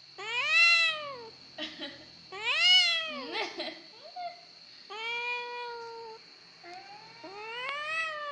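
Cat meowing while held on its back: a run of about five long, whiny meows, most rising then falling in pitch, one held level in the middle.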